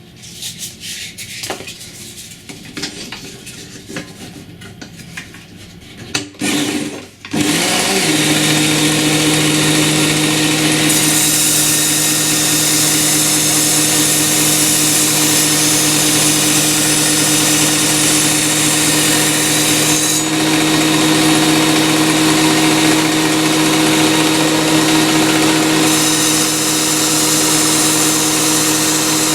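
Work Sharp Ken Onion belt sharpener with the Blade Grinder Attachment: a few clicks and knocks of handling, then the motor starts about seven seconds in and runs at a steady hum. A louder abrasive hiss of a blade against the running belt comes in a few seconds later, drops away about two-thirds through, and returns near the end.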